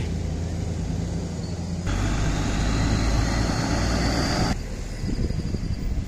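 Road traffic: a steady low rumble, then from about two seconds in a vehicle passing close for a couple of seconds, with a faint rising whine, before it fades back to the rumble.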